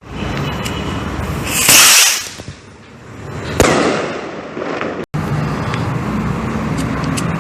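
Firework rockets going off: a loud hissing rush about two seconds in, then a sharp bang that trails away over about a second. After that, a few faint pops over steady background noise.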